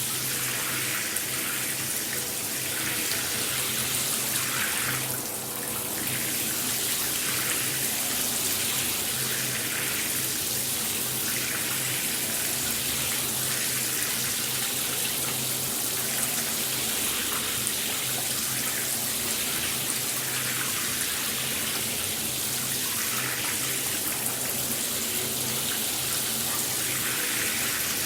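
Shower running: water spraying steadily with an even hiss, dipping briefly about five seconds in.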